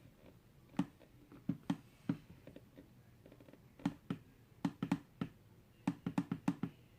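About fourteen sharp clicks, some single and some in quick runs of three or four, from clicking through product options in an online shop.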